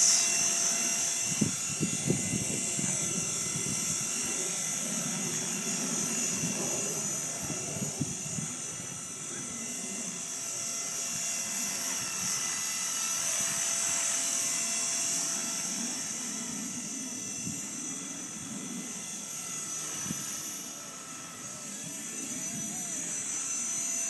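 Blade SR radio-controlled helicopter hovering low: a steady high-pitched whine from its motor and rotors. Gusts of wind rumble on the microphone, strongest in the first several seconds.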